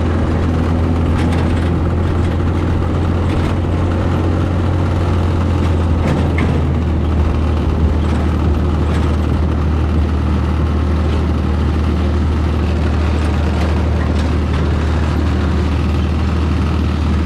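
A motor vehicle's engine running steadily, with a strong low hum and rumble that does not change.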